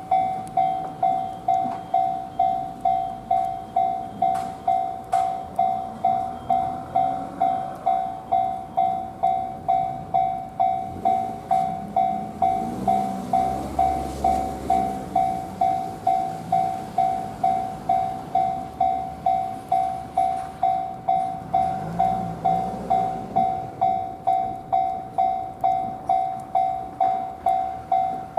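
Japanese railway level-crossing alarm bell ringing on and on at a little under two strokes a second. It rings with no train coming, which the uploader suspects is a crossing fault. A low rumble swells and fades about halfway through and again later.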